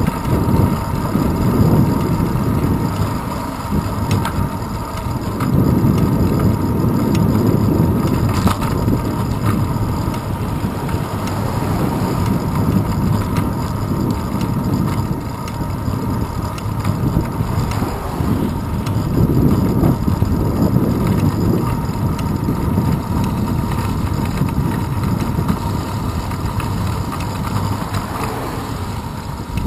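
Wind and road rumble picked up by a handlebar-mounted GoPro Hero 2 on a moving bicycle, swelling and easing every few seconds.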